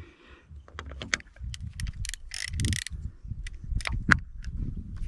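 Irregular clicks, rattles and low knocks from fishing tackle being handled while a hooked carp is played on a centre-pin reel, with a brief rustle about halfway through.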